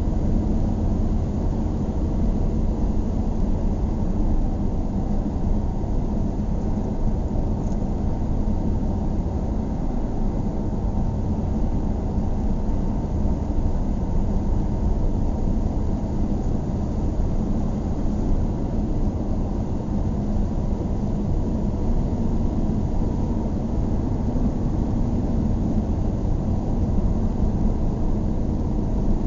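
Car driving at a steady speed: a constant low rumble of road and engine noise that holds even throughout, with no passing vehicles standing out.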